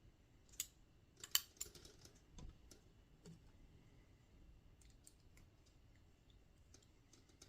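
Faint, scattered clicks and taps of a hex driver and small RC helicopter frame parts being handled while a screw is fitted, most of them in the first three and a half seconds.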